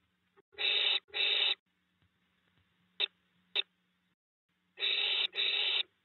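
Barn owls giving harsh, rasping hissing calls, two pairs of half-second hisses with two short clicks between them.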